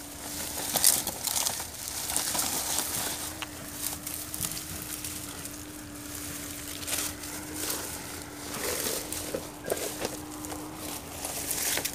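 Dry straw and reed stalks crackling and rustling as a wire-mesh cage trap is handled in the grass, with irregular crunches and snaps throughout.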